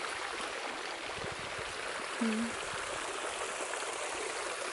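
Garden fountain splashing steadily into its pool, with a brief murmur from a voice about two seconds in.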